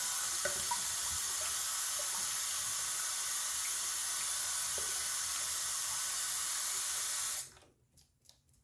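Bathroom sink tap running cold water in a steady stream while a face is rinsed, then shut off suddenly near the end, leaving a few faint drips and clicks.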